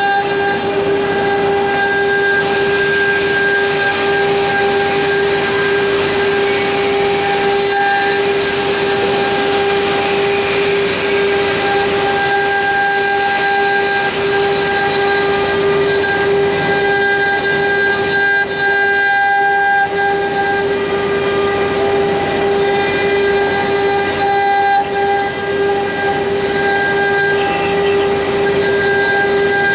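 Water-cooled spindle of a mini CNC router running at speed with a steady high-pitched whine, its engraving bit cutting into a wooden cylinder turning on the rotary axis, with a hissing noise of the cut.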